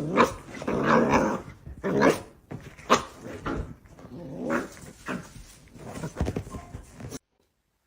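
A dog growling and barking in a run of short bouts, roughly one a second, that stop abruptly near the end.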